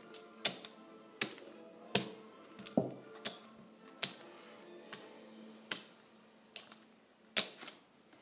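Sharp taps close to the microphone, about a dozen at uneven spacing, roughly one a second, as if fingertips were tapping on the recording device. Faint background music with steady tones runs underneath.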